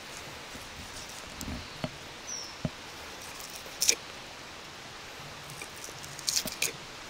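Knife trimming membrane and fat from a raw leg of lamb: scattered faint scrapes and small taps of the blade on the meat and cutting board, with a short cluster near the end, over a steady faint hiss.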